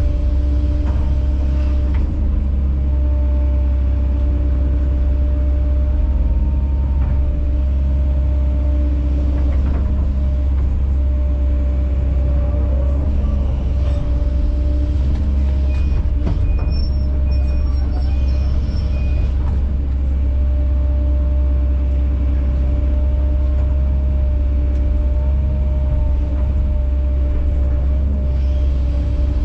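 Kobelco SK210 excavator's diesel engine running steadily with a deep, even rumble while the machine works. A short run of faint beeps sounds about halfway through.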